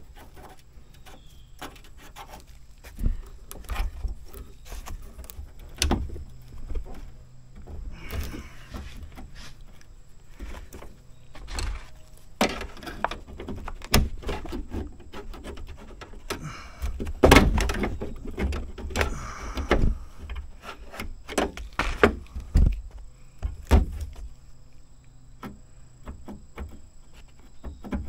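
Irregular metal clicks, taps and knocks from hands working inside a Jeep Wrangler TJ's steel door, pushing the lock cylinder's spring retaining clip into place by feel.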